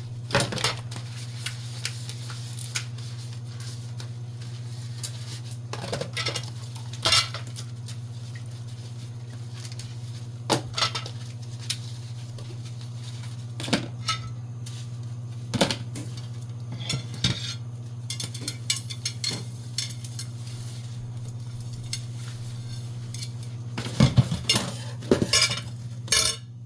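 Dishes and cutlery clinking and knocking while being washed by hand, in irregular strokes with a louder cluster near the end, over a steady low hum.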